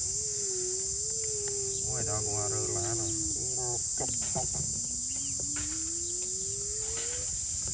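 Steady high-pitched chorus of insects, under a long low tone that wavers and slowly slides down and then up, with a short stretch of voice about two seconds in.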